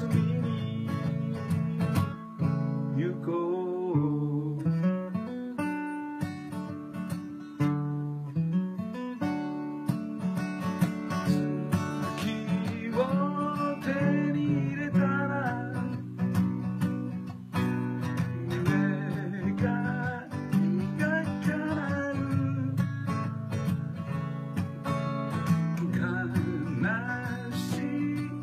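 Acoustic guitar strummed in a steady accompaniment, with a man singing over it for much of the time.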